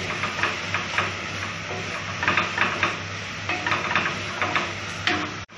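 Wooden spoon stirring sliced onions frying in oil in an aluminium pressure cooker, with repeated scrapes and knocks against the pot over a steady sizzle. The onions are softening toward translucent.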